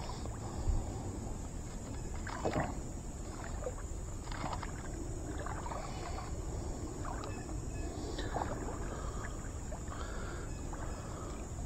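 Ultralight spinning rod and reel being cast and retrieved, with scattered brief handling noises every second or so over a steady high-pitched buzz.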